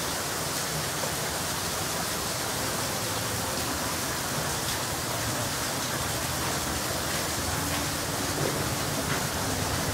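Heavy rain falling steadily, a dense even hiss with no break.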